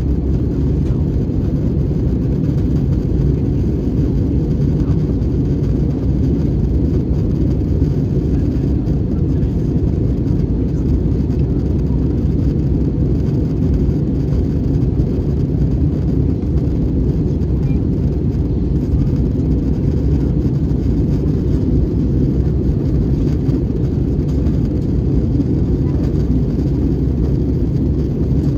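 Steady deep rumble of engines and rushing air inside the cabin of an Airbus A321 airliner descending on approach, heard from a window seat beside the wing.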